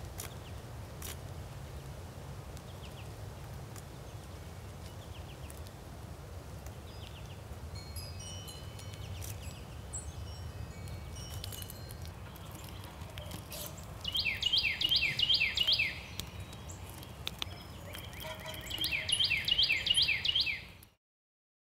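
Wild songbirds chirping over a steady low background rumble. Twice, about two-thirds through and again near the end, a bird gives a loud run of quick, repeated downward-sliding notes lasting about two seconds. The sound cuts off suddenly just before the end.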